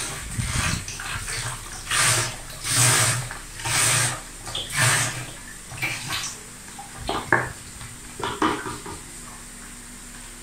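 Açaí juice poured from a container into a fermenting bucket, gushing and splashing in uneven glugs about once a second. Two or three short knocks follow after about seven seconds.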